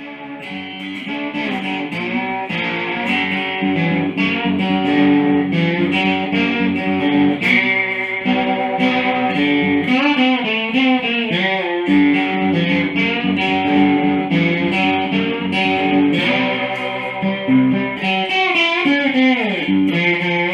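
Cigar box guitar being played: picked notes and chords in a steady rhythm, with sliding pitches about halfway through and again near the end.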